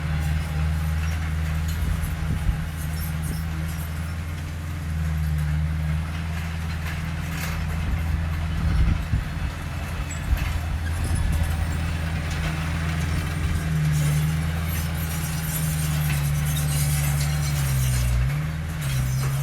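Heavy earthmoving machine's diesel engine running steadily, its pitch dipping briefly under load near the end, with a few sharp metallic knocks.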